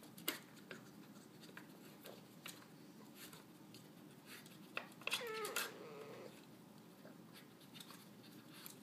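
Pieces of a wooden dog puzzle toy clicking and knocking as a Boston terrier noses at them for treats. About five seconds in the dog gives a short whine that falls in pitch.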